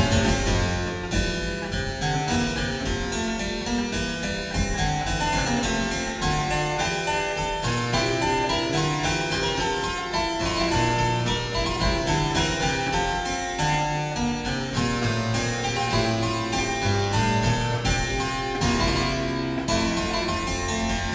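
A keyboard playing an improvised Baroque-style fugue: several melodic lines interweave in counterpoint, in a steady, busy stream of notes.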